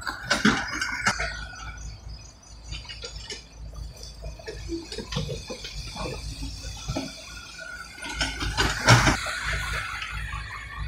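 Komatsu PC78US mini excavator loading rubble into a dump truck. Its diesel engine runs steadily under irregular knocks and clatter of the steel bucket and debris, with a loud crash near the end.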